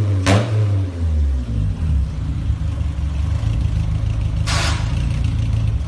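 Honda S2000's four-cylinder engine heard at its exhaust tip: one quick throttle blip just after the start, falling back to a steady idle, with one more short sharp burst of exhaust noise near the end.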